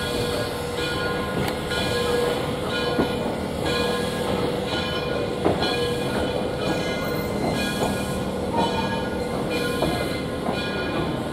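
Train rolling slowly behind Frisco 1630, a 2-8-2 steam locomotive, heard from an open coach window: a rhythmic beat about every 0.7 seconds over a steady running noise and hum, with an occasional sharp click from the wheels.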